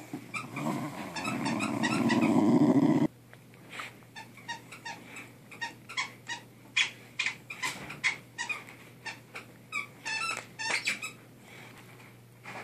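A schnauzer growling steadily for about three seconds, then stopping abruptly, followed by a run of short clicks and squeaks as it chews on a new play ball.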